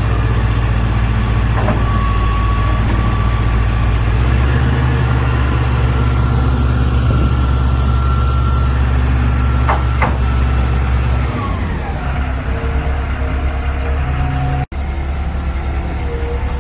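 Tadano GR300XL-1 rough-terrain crane's Cummins QSB5.9 turbocharged diesel engine running steadily, with a whine above the engine note. About eleven seconds in, the whine slides down in pitch and the engine settles to a slightly lower, steady running speed. There is a brief break in the sound near the end.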